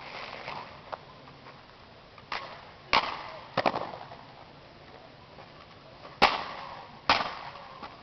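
Drill rifles being handled in an exhibition drill routine: a series of sharp slaps and knocks as the rifles are smacked by hand and grounded, about six in all, irregularly spaced, the loudest about six seconds in.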